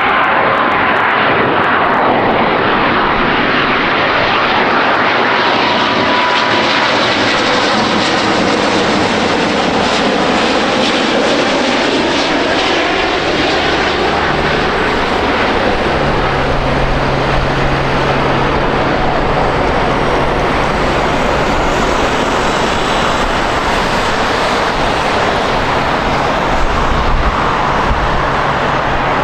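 Jet airliner's engines, loud and steady as the aircraft passes close by on the runway, with tones that slide in pitch as it goes past.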